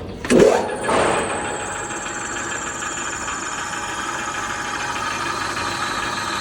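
Sawdust rod (biomass briquette) making machine: a loud burst with a falling squeal about half a second in, then the machine running steadily with a high whine while it works rice husk.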